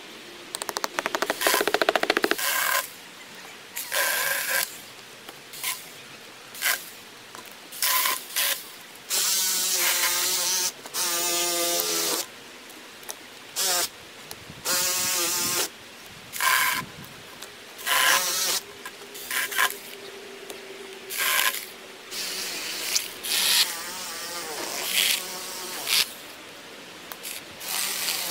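Small hand-held cordless power tool run in a string of short bursts of about one to two seconds, its buzzing motor wavering in pitch in the longer runs, as it works on a fallen log.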